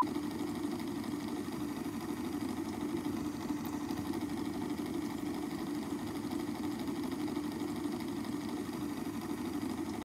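A steady, even mechanical hum with no change in level.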